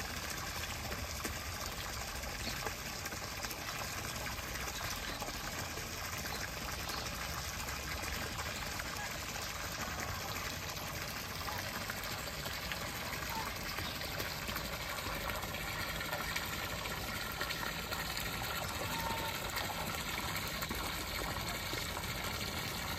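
Steady gush of water running into a small concrete pond, churning its surface.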